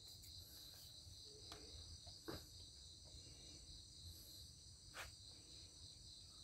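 Near silence: room tone with a faint, steady, high-pitched chirring, and two faint clicks about two and five seconds in.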